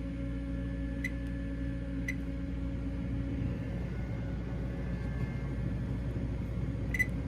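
Steady machine hum from a vending machine, with three short electronic beeps from its keypad being pressed, about one, two and seven seconds in.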